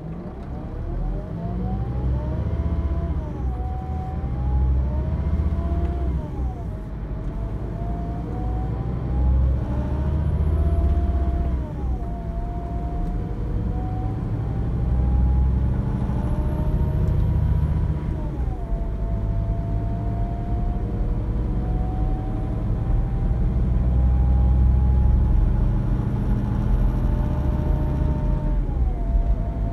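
Heard from inside the passenger saloon, a Scania K360 coach's 9-litre five-cylinder diesel pulls away and accelerates. Its deep engine note and a rising whine climb in pitch, then drop back at each of several upshifts, the gaps between changes growing longer as the coach gathers speed.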